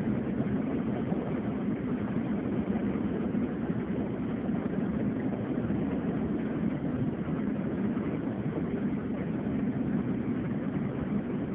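Steady engine drone and road noise of a bus on the move, heard from inside the cabin: an even low rumble with hiss, without changes.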